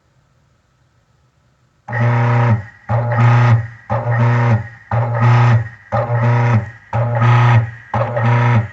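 Washer drive motor starting its wash cycle, humming loudly in regular pulses of about a second each, like agitation, starting about two seconds in.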